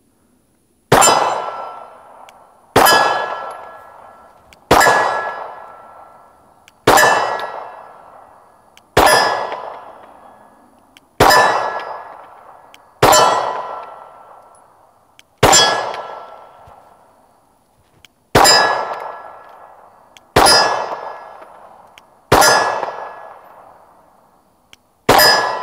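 Glock 19 Gen 5 9mm pistol fired slowly with 147-grain subsonic FMJ, twelve shots roughly two seconds apart. Each shot is followed by a long, fading metallic ring from a steel target being hit.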